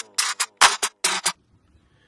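End of the intro music: a quick run of about seven sharp percussive hits, then it cuts off just past halfway, leaving near silence.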